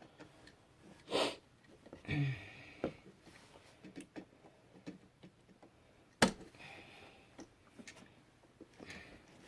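Small clicks and rustles of wires being pushed into an electrical box around a wall receptacle, with one sharp click about six seconds in. A sniff about a second in, and a short breath or grunt about two seconds in.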